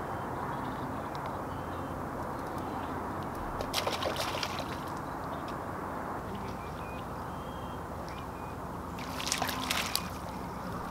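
Lake water lapping and sloshing against a rocky shoreline, with short splashy bursts about four seconds in and again near the end.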